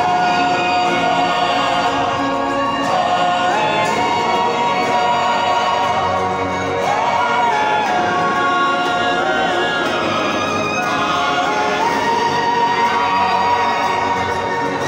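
Male vocal group singing a slow, chant-style song in long held notes that step slowly up and down, echoing in a large church.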